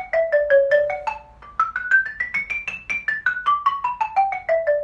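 Xylophone struck with two mallets in a quick, even run of single notes. The scale-like line falls, climbs about two octaves near the middle, then steps back down.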